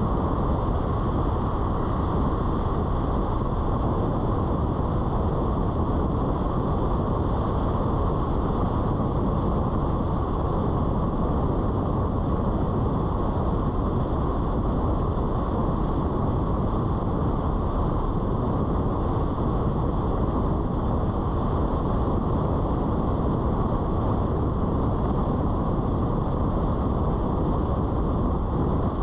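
Steady, muffled road and wind noise of a car driving, unchanging throughout.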